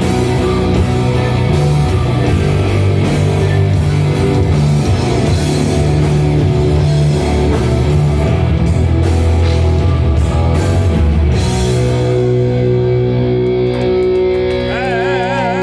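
Live atmospheric black metal band playing loud, with distorted electric guitars, bass and drum kit. About twelve seconds in the drums drop out and a held chord rings on, with a wavering high note coming in near the end as the piece closes.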